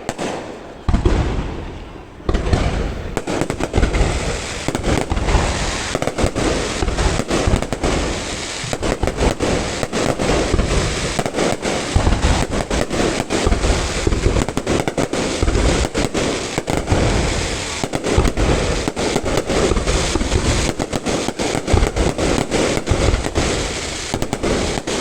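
Aerial fireworks going off in a continuous barrage of bangs and crackles over a deep rumble. The barrage is sparser at first and becomes dense and unbroken from about two seconds in.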